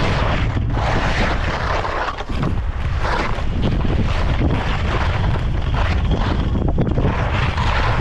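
Skis scraping across hard, icy snow through a series of turns, the scrape swelling and fading again and again, over a steady low rumble of wind on the camera microphone.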